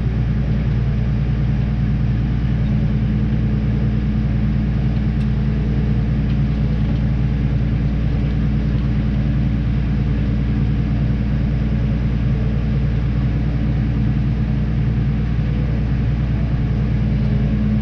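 Tractor engine running at a steady speed with a constant low drone, heard close up.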